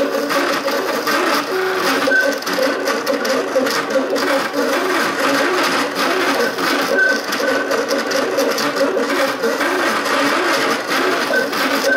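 Cupcake CNC MakerBot 3D printer running a print: its stepper motors whir in quickly changing pitches as the axes move back and forth. A few brief higher tones come and go.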